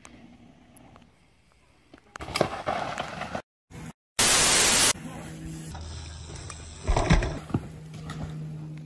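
Mountain-bike crash footage cut together. First a rough rushing noise, then a short burst of static over a logo card, then a mountain bike crash with a hard thud about seven seconds in, over a steady low hum.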